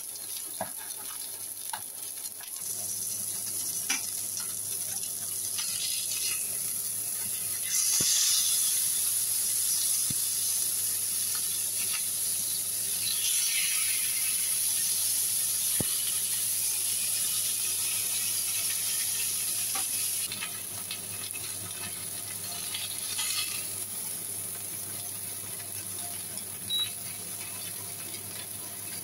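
Mackerel fillets and milkfish sizzling in oil in a hot nonstick pan. The sizzle swells a couple of seconds in, is loudest about 8 seconds in and eases off after about 20 seconds, with a few light clicks.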